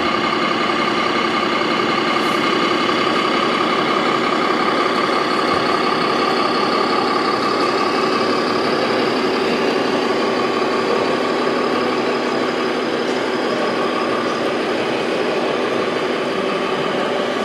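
Sound module of an RC heavy-haulage truck model playing a steady, idling diesel truck engine sound through its small loudspeaker.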